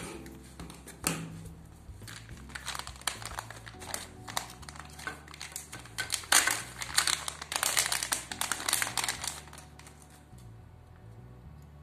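Crinkling of anti-static shielding bags as they are handled, opened and a circuit board is pulled out: irregular crackling, loudest about two-thirds of the way through, dying away near the end.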